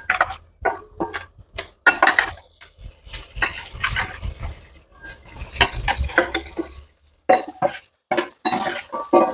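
Metal slotted spoon scraping and clinking against a stainless steel bowl as pieces of fish are pushed off into a metal pan, a quick run of short clatters with a brief lull about seven seconds in.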